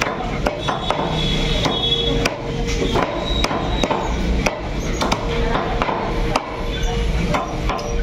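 Heavy steel cleaver chopping skinless chicken pieces on a thick wooden block: a quick, irregular series of sharp chops, with steady background hum and faint music and voices.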